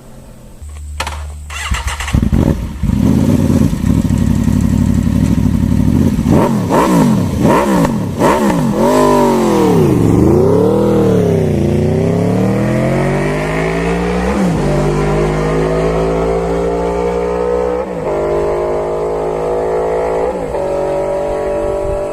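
Motorcycle engine catching about a second in and being revved in a series of sharp blips. It then accelerates hard, its pitch climbing steadily, with three brief dips as it shifts up through the gears.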